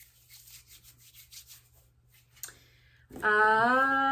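Hands rubbing lotion together, a soft repeated swishing, with a light tap about halfway through. About three seconds in, a woman's voice hums one long note that rises slightly and then holds.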